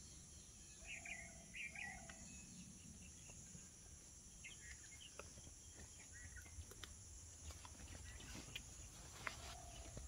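Faint bird calls: a few short chirps, a pair about a second in and more around the middle and near the end, over a steady high hiss, with scattered light clicks.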